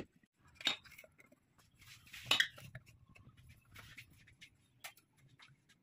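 Scattered clinks, knocks and scrapes of cookware and utensils being handled, starting with a glass lid set on a pan; the loudest is a short scrape a little over two seconds in.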